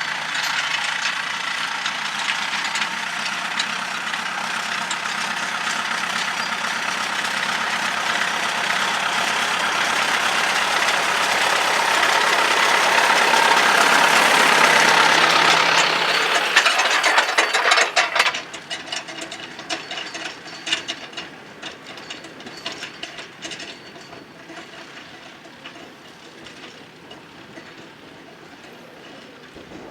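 Tractor running under load while ploughing, with mechanical clatter. It grows louder over the first half, then drops off abruptly a little past halfway, leaving quieter rattling and clicking.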